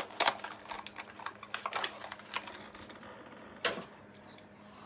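Rapid, irregular clicks and crackles of a plastic blister pack and its card backing being handled and opened to free a diecast toy car. After a pause comes one more sharp click.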